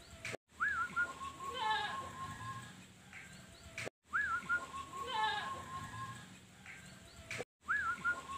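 Zebra dove (perkutut) singing its cooing phrase of quick rolling notes. The same phrase comes round about every three and a half seconds, each time cut by a brief sudden gap.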